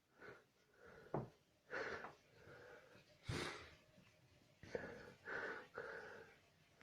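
A man's wheezy, gasping breaths and sniffles in a run of short bursts as he builds up to a sneeze, with one sharp, hissy burst of breath a little past three seconds in.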